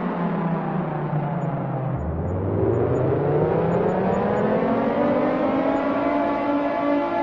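Air raid siren, its pitch falling for about two seconds, then rising again and levelling off at a steady high tone about six seconds in.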